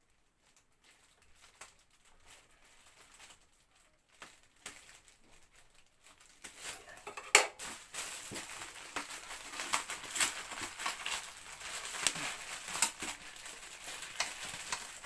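Clear plastic wrapping crinkling and crackling as it is handled and pulled open, with many sharp crackles. Faint and sparse at first, louder and busier from about six seconds in.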